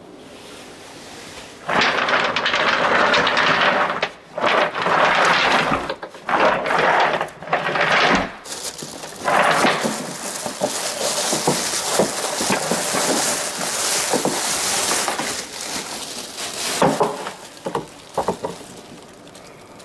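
A plastic garbage bag rustling and crinkling in bursts as it is handled and lifted out of an automatic cat litter box's waste drawer, with plastic knocks and clicks from the drawer. A few sharp knocks come near the end.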